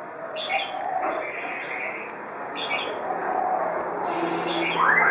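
Small birds chirping in short high bursts, three times, over a faint murmur of distant voices; a louder voice starts near the end.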